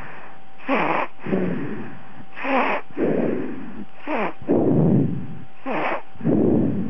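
Sleeping baby snoring: four breaths, about one every 1.7 seconds, each a short snore that falls in pitch followed by a longer, lower breathy sound.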